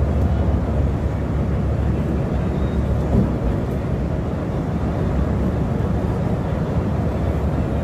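Volvo B7R coach's rear-mounted six-cylinder diesel and tyre noise heard inside the cabin at highway cruising speed: a steady low rumble with no changes.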